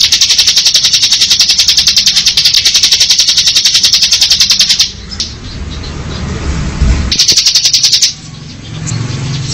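Bar-winged prinia (ciblek) singing its 'ngebren' song: a long, fast, even rattling trill of high notes at about a dozen a second, which breaks off about five seconds in. A second, shorter trill of about a second follows near the end.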